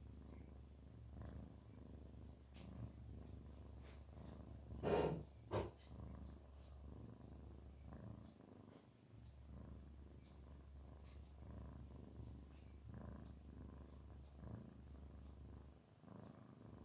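Domestic cat purring steadily in a low hum, the sound of a relaxed, contented cat. Two short, louder sounds come close together about five seconds in.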